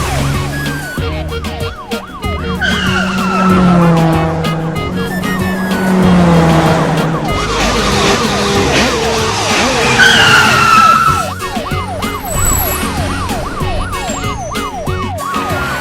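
Cartoon police-siren sound effect, a fast yelp sweeping up about three times a second, over background music with a steady bass line. Twice, about three and ten seconds in, a short falling tone sounds over it.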